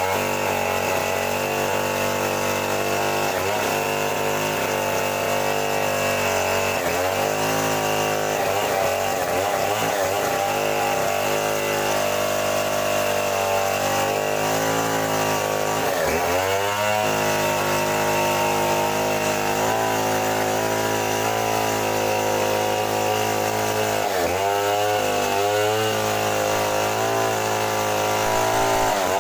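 Two-stroke gasoline chainsaw running at high throttle while ripping lengthwise through a mahogany plank. Its engine note drops and recovers several times as the cut loads it.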